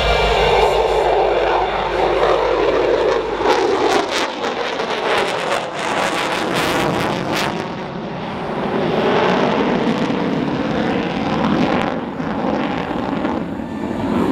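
Jet roar from an F-22 Raptor's two Pratt & Whitney F119 turbofans at high power during a high-G manoeuvring pass, swelling and fading as the jet turns. For several seconds in the middle the roar carries sharp crackling.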